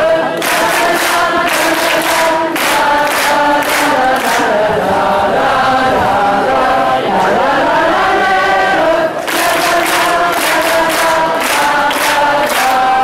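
A group of Burgundian folk performers singing together, a choir of voices holding sustained notes. A sharp, regular beat of strokes accompanies the singing in two stretches, in the first few seconds and again about two-thirds of the way through.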